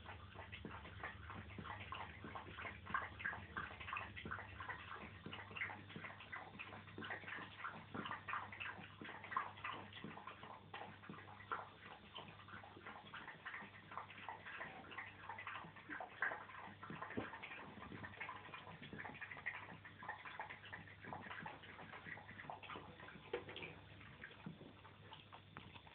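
3.5-week-old Jack Russell terrier puppies scrabbling and tussling in a fleece-lined plastic dog bed: faint, irregular ticking and scratching of small claws and rustling bedding, over a low steady hum.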